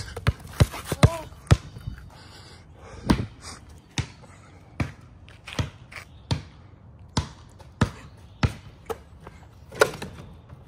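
Basketball bouncing repeatedly, a string of sharp, irregularly spaced thuds about one or two a second.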